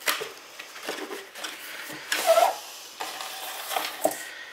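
Retail camera-box packaging being handled and opened on a wooden tabletop: rustling and scraping, with a louder squeaky scrape about two seconds in.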